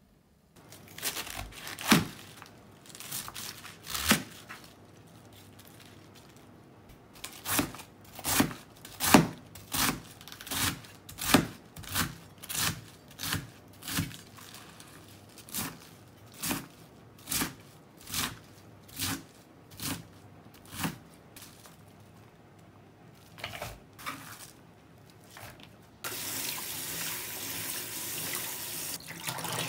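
A kitchen knife chops cabbage on a plastic cutting board, a string of sharp knocks at about one or two a second. About 26 seconds in, a kitchen faucet starts to run steadily over the chopped cabbage in a strainer bowl.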